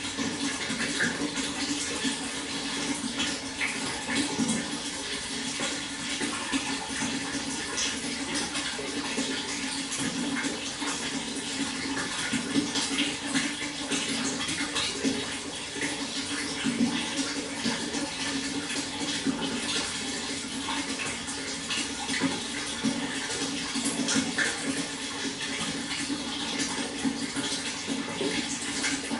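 Water flowing steadily, a continuous splashing rush that doesn't change.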